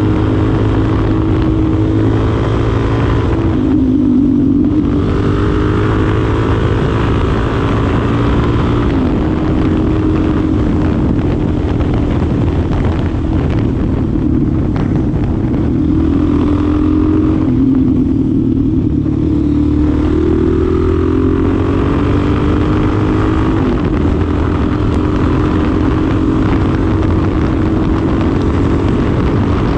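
2025 Suzuki DR-Z4SM supermoto's 398cc single-cylinder engine under way, its revs climbing and dropping again and again as it is ridden through the gears. The pitch dips about four seconds in and again past halfway before building once more.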